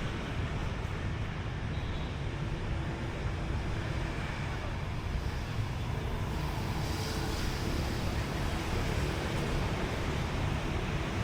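Steady city street noise: a constant rumble of passing traffic with faint voices in the background.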